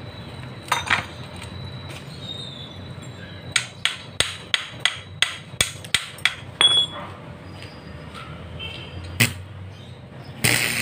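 Quick sharp taps of a hammer on a steel pipe at the weld joint: about nine metallic knocks at roughly three a second, with a few single knocks before and after. Near the end the crackle of a stick-welding arc starts as the electrode is struck on the joint.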